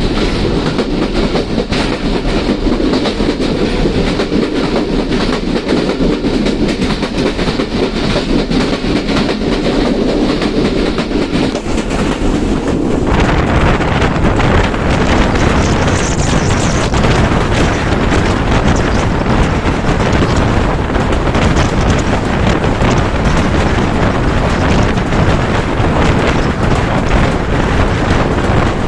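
Passenger train coach running at about 80 km/h, heard from an open doorway: a steady din of wheels on the rails. About 13 seconds in it grows louder and fuller as the microphone moves outside the door into the rushing air.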